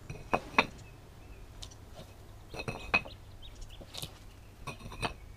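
Paving bricks being lifted out of a path and set down on one another, clinking and knocking in a series of sharp strikes, the loudest about half a second in and about three seconds in.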